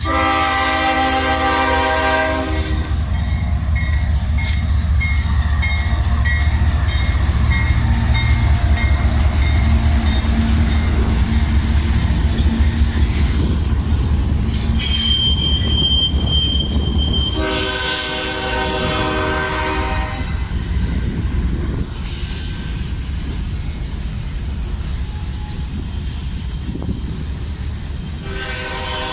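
CSX diesel freight train hauling rock cars passes while its locomotive sounds the horn: a blast of about three seconds at the start, another about 17 seconds in, and a third beginning at the very end. Under the horn runs the heavy rumble of the locomotive, which gives way to the lighter running of the cars after about 17 seconds, with a brief high whine about 15 seconds in.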